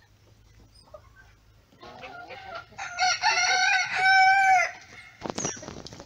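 A rooster crowing once, a long call of about two seconds that starts nearly three seconds in, with a short dip partway through. Short clucks and chirps from other chickens come before and after it.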